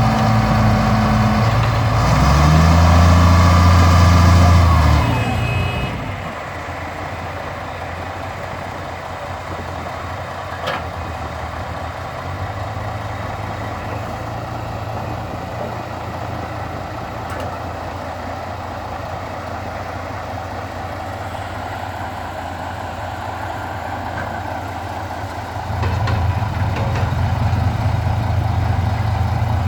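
Heavy diesel engine of earthmoving machinery working hard: loud and revving up for the first few seconds, then dropping to a lower, steady idle, and coming back up under load again near the end. One sharp click partway through.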